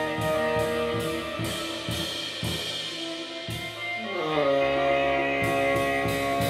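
Tenor saxophone and drum kit improvising free jazz: the saxophone holds long notes and slides down in pitch about four seconds in, over busy cymbal and drum strokes.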